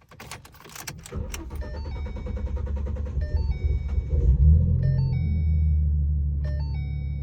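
Ford Mustang V6 cranking over for about three seconds before it catches with a brief rev and settles to a steady idle. The long crank is, in the owner's view, the sign of a failing fuel pump. A repeating electronic chime sounds over it.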